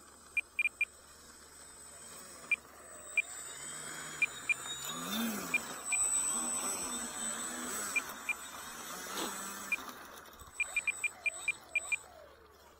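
Short, high electronic beeps, several in quick runs near the start and near the end and single ones in between. Under them is a wavering whir that swells and fades in the middle.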